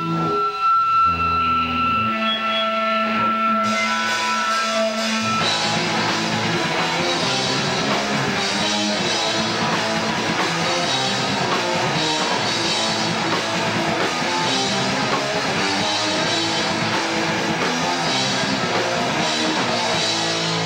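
Live rock band with electric guitars and a drum kit. A few held notes ring for the first few seconds, then the whole band comes in loud about five seconds in and plays on.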